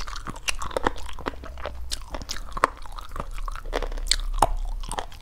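Close-miked chewing and biting: a person eating pieces of stir-fried chicken, with many short, sharp, wet mouth clicks at an uneven pace.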